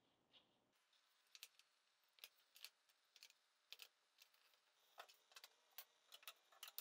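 Near silence with faint, irregular light clicks and taps: hand tools and plywood pieces being handled and set down in a small plywood tool caddy, about fifteen to twenty small knocks.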